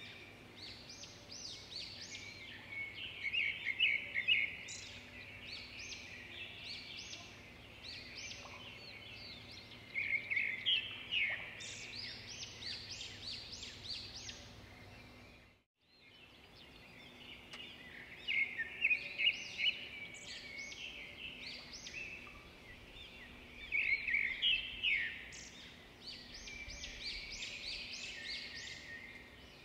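Many small birds chirping and calling over one another, with louder bursts of rapid chirps every few seconds. The sound drops out for a moment about halfway through.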